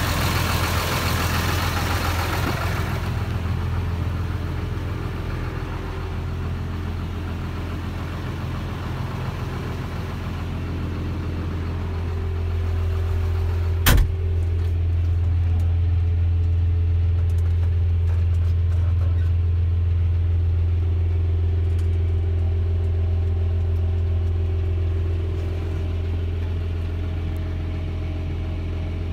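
John Deere 6620 tractor's six-cylinder diesel engine idling steadily with a deep, even hum, heard first beside the bonnet and then from inside the cab. A single sharp knock comes about halfway through.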